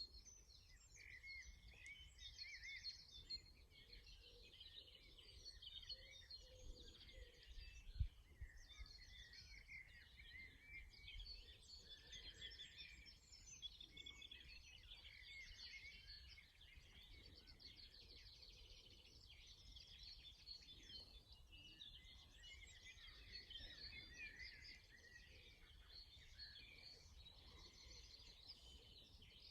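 Faint birdsong, a linnet's fast twittering song among other small birds, over a low rumble. A single low thump about eight seconds in.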